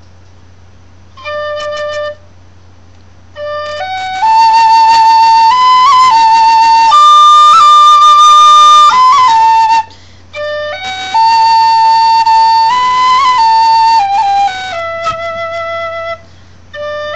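Tin whistle played solo: one short trial note, then a slow melody of held, stepping notes in two phrases with a brief pause between them. A steady low hum runs underneath.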